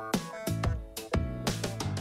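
Background music: drum hits over held bass and melody notes.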